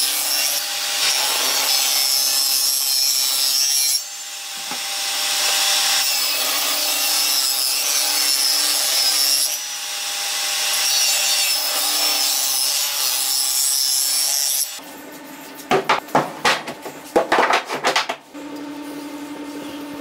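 A power tool working wood: a dense, loud rasping hiss over a steady motor tone, in long passes with short dips about 4 and 10 seconds in. It stops near 15 seconds, and a few sharp knocks and clatters of wood follow, then a steady low hum.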